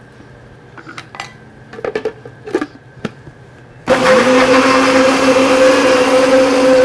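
A few light knocks and clicks, then a countertop blender switched on about four seconds in: its motor spins up and runs loud and steady at full speed, emulsifying egg, garlic, mint and lime into a mayonnaise-style sauce.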